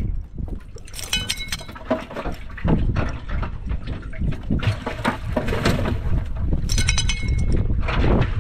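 Metal clips on fish-culling gear jingling twice, about a second in and again near seven seconds, over a steady low rumble with scattered light knocks.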